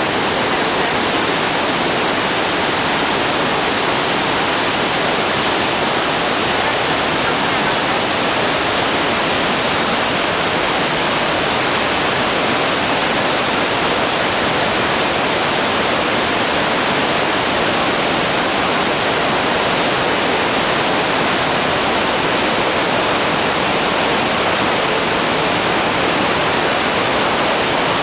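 Iguazú Falls: the loud, steady, unbroken rush of a huge volume of water plunging over the falls.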